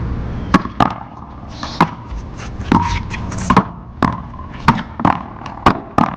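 Paddleball rally: about ten sharp pops as the hard rubber ball is struck by paddles, slaps the wall and bounces on the court, often in quick pairs.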